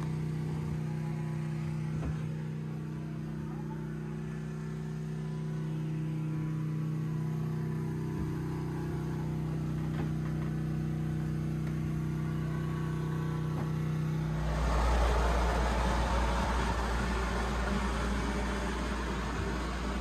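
Yanmar 4JH-45 inboard diesel engine running at a steady hum. About 14 seconds in, the sound changes abruptly to a louder rushing noise with a deep rumble.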